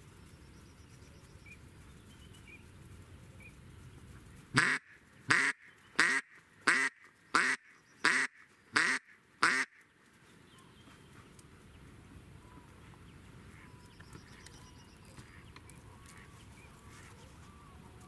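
Live decoy hen duck quacking: a run of eight loud quacks a little over half a second apart, starting about four and a half seconds in. This is the decoy hen calling, the way it draws drakes in. A few faint small-bird chirps sound in the background.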